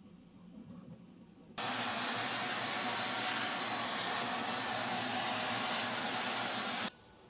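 A vacuum hose sucking up sawdust from CNC-cut plywood: it starts suddenly about a second and a half in, runs steadily, and cuts off abruptly near the end. Before it there is only a faint low hum.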